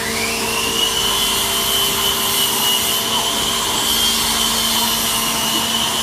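Handheld electric power tool working timber, its motor rising to speed at the start and then holding a steady high-pitched whine.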